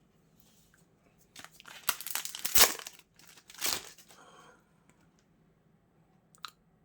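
Foil booster pack of trading cards torn open and crinkled, with rustling bursts building to a sharp rip about two and a half seconds in and another about a second later, then faint rustling.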